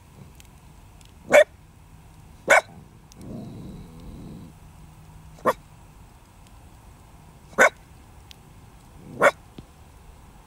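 A dog barking five times, each bark short and a second or more apart, with a low growl about three seconds in. Faint crackling of a wood campfire lies underneath.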